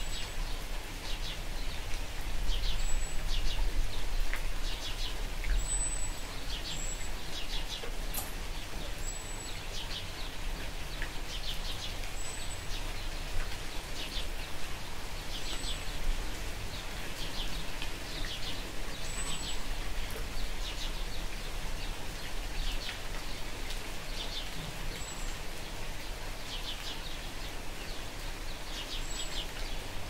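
Steady light rain falling, with a bird chirping short trills over and over, one every couple of seconds.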